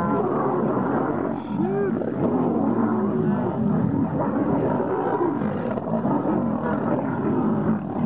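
Several lions fighting, a maned male and lionesses growling and snarling over one another without a break.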